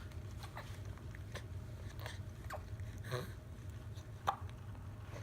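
A five-week-old baby hiccuping: short, sudden hics about every half-second to second, the loudest a sharp one about four seconds in, over a steady low hum.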